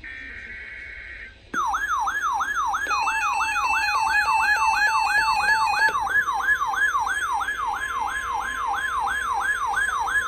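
The tail of an Emergency Alert System SAME header, a two-tone digital data burst, ends about a second in. Then a loud alert siren starts: a rising sweep repeating about three to four times a second, with steady beeping tones layered over it for a few seconds in the middle.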